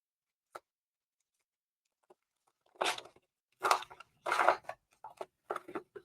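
Trading-card booster pack's foil wrapper being torn open: three loud ripping sounds about three seconds in, followed by shorter crinkles.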